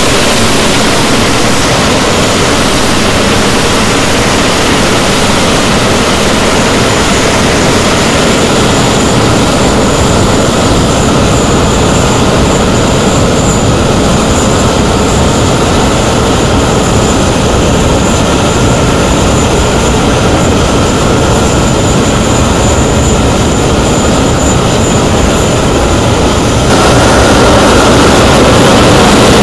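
Twin Rolls-Royce Avon turbojets of an English Electric Lightning F.6 running on the ground at high power: a loud, steady rushing roar, with a high steady whine coming in after several seconds. Near the end the roar steps up louder.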